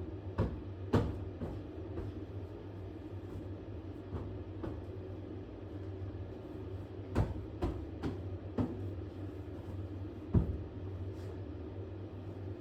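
Steady low rumble with about ten irregular sharp knocks and clicks, the loudest about a second in and again near the end.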